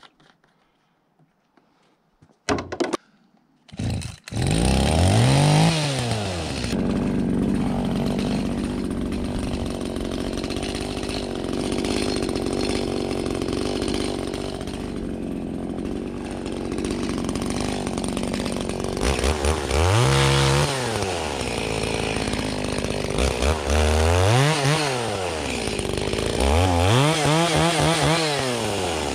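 Small engine starting about four seconds in after a couple of short knocks, then running steadily and being revved up and back down several times.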